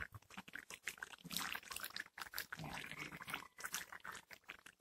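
Spatula stirring a thick pork, potato and bell-pepper stew in a metal pan: wet sloshing with irregular small clicks and scrapes against the pan.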